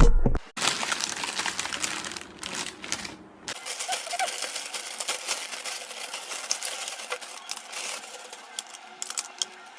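A heavy thump at the start, then dense crackling, rustling and clicking of packaging being handled, thinning to a few sharp clicks near the end.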